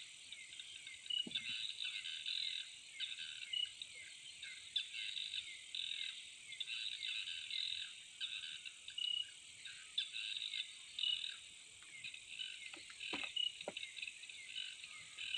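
Chorus of crickets and other insects: pulsed, repeating trills and chirps over a steady high-pitched insect hiss. A couple of faint short knocks near the end.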